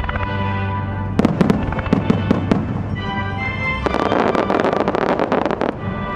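Fireworks shells bursting over music set for a synchronised display: a handful of sharp bangs about a second in, then a dense, rapid run of many bursts from about four seconds to nearly six.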